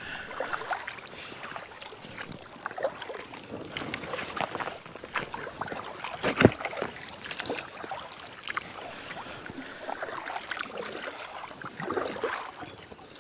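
Paddle strokes splashing and dripping beside an inflatable kayak, with scattered small clicks and knocks and one sharper knock about six seconds in.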